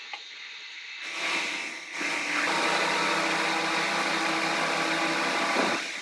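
A motor-driven machine running steadily at one pitch, coming in about two seconds in and stopping just before the end.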